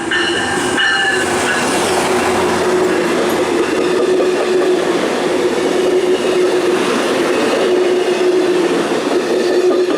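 A train passing close by: the loud, continuous rumble and clatter of its wheels on the rails, with a steady tone held throughout.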